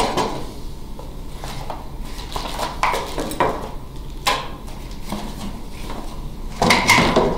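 Metal mounting brackets knocking and clinking as they are lifted out of a cardboard box and set down on a wooden table, in a string of short knocks. Near the end, a louder, longer rustling scrape as the cardboard box is handled.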